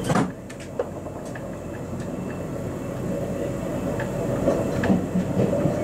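RBDe 560 "Domino" electric multiple unit running along a station platform, heard from the driver's cab: a steady rail rumble with scattered wheel clicks. A sharp knock comes right at the start, and a steady hum grows louder toward the end.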